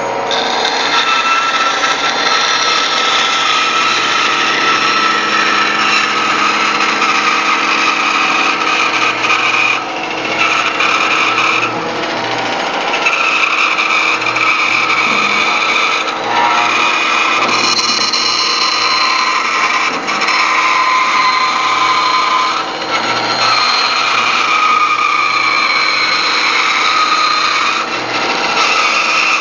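Band saw running and cutting through a thick wooden leg blank along a curved line: a loud, steady machine whine with high tones that shift as the wood is fed, dipping briefly several times.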